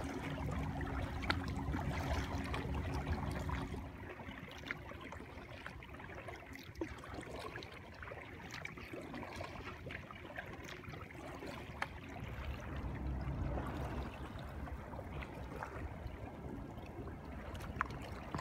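Gentle water sounds around a kayak on calm water: soft trickling and dripping with scattered light ticks, over a low rumble of wind on the microphone. A faint low steady hum stops about four seconds in.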